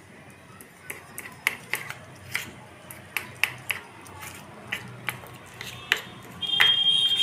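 Steel spoon clinking and scraping against a steel bowl while stirring flour into water to a slurry: a string of light, irregular clinks. Near the end a steady high-pitched tone starts and holds, louder than the clinks.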